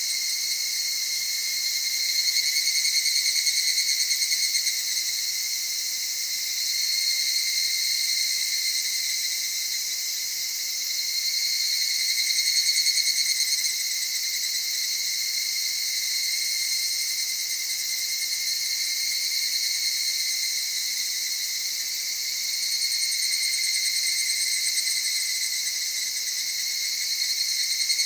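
A chorus of evening cicadas (higurashi, Tanna japonensis) calling. The overlapping songs swell and fade every few seconds.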